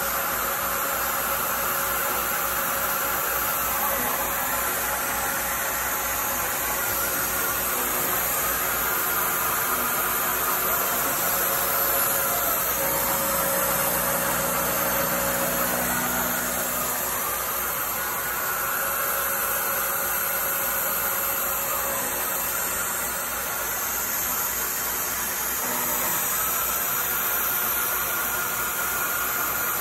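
CNC milling machine's end mill cutting an aluminum block, under the steady hiss of a mist coolant sprayer running on 20 psi of air. The cutting tone comes and goes in passes a few seconds long.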